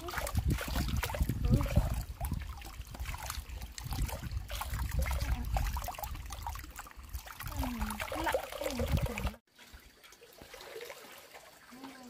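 Water trickling and splashing over a heavy low rumble, with many small irregular splashes. About nine seconds in it cuts off abruptly and becomes much quieter.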